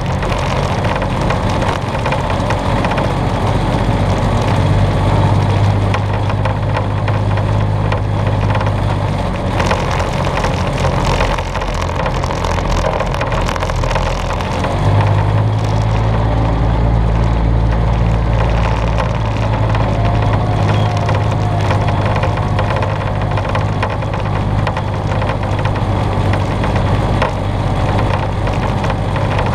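Vehicle engine running steadily while driving along a rough grassy dirt track, its low hum growing stronger about 4 seconds in and again about 15 seconds in.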